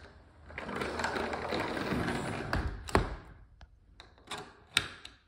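Repaired cast aluminium handle latch on a sliding patio door being worked: a scraping, rubbing sound for about two seconds, a sharp click about three seconds in, then a few lighter clicks near the end. The latch now has just enough space to come out and catch.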